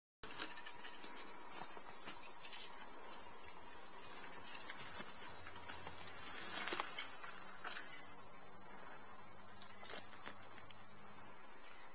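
Cicadas singing in a steady, high chorus, with a few faint crackles now and then.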